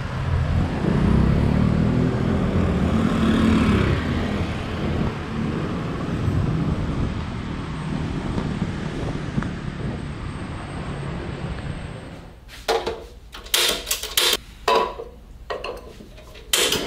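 City street traffic noise, a dense low rumble with a motor engine running past in the first few seconds. About twelve seconds in it gives way to a quieter kitchen and a series of sharp clinks and knocks of dishes or utensils.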